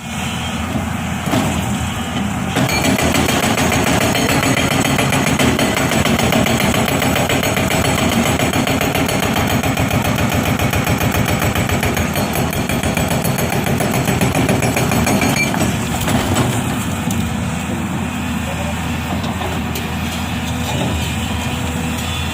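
Unicorn UN140B hydraulic rock breaker on an excavator hammering with rapid, steady blows. It starts a couple of seconds in and stops about two-thirds of the way through, leaving the excavator's engine running.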